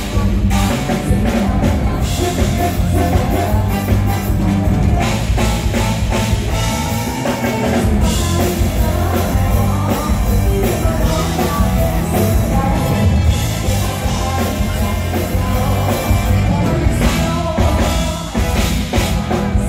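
Female singer performing live with an amplified Thai mor lam band: her vocals over drum kit, bass and percussion through the PA system.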